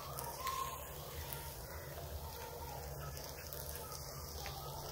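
Malpua frying in hot ghee in a nonstick pan: a quiet, steady sizzle with faint crackles, over a low steady hum.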